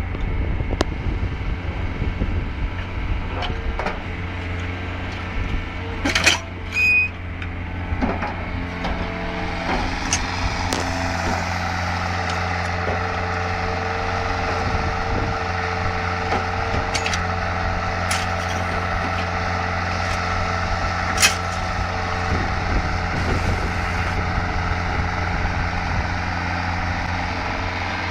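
Heavy road-construction machinery running, its engine droning steadily, with scattered knocks, a short louder burst about six seconds in and a sharp knock about twenty-one seconds in.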